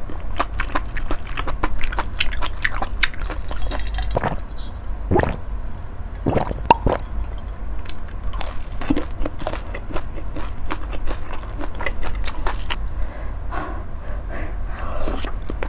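Close-miked eating of mala hotpot with beef large intestine (daechang): wet chewing with many small clicks and smacks of the mouth.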